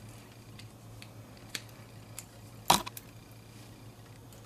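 Screwdriver turning a tension screw into a plastic 3x3 speedcube core: a few scattered light clicks and ticks, with one sharper click a little past the middle.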